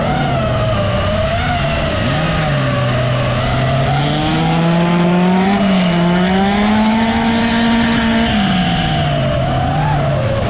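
Racing car engines under hard acceleration, the pitch rising and dropping with throttle and gear changes. A second car's engine is heard climbing in pitch for a few seconds mid-way.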